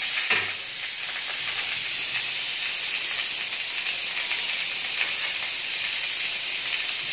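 Stovetop pressure cooker venting steam through its valve in a steady hiss as the pressure is let out before the lid is opened.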